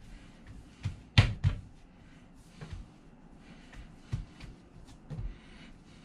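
Hands pressing and working a ball of pie dough on a countertop: a few dull thumps, the loudest about a second in.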